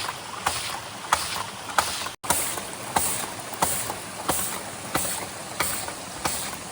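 Footsteps walking at a steady pace, about one and a half steps a second, each step a sharp crunch on dry forest ground. The sound breaks off briefly about two seconds in.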